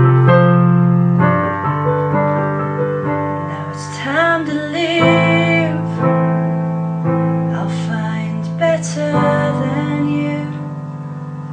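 Background song: sustained piano chords, with a singing voice coming in for a few short phrases in the middle.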